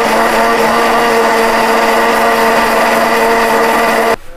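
Miyako electric blender with a plastic jar running steadily as it blends cucumber into juice; its motor holds an even pitch, then is switched off suddenly about four seconds in.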